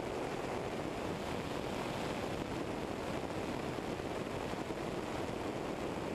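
Steady rushing noise of a Eurostar EV97 ultralight in cruise flight, mostly airflow, with no distinct engine tone standing out.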